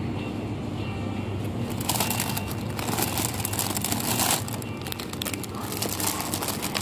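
Plastic packets of frozen food crinkling as they are handled and pulled from a supermarket freezer case. The crinkling is loudest from about two to four seconds in and comes again near the end, over a steady low hum.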